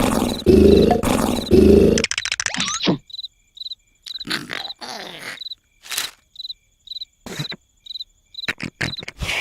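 Loud cartoon snoring, a rhythmic rasp repeating about once a second, stops about two seconds in. Crickets then chirp at a steady pulse, about two chirps a second, with scattered short cartoon sound effects.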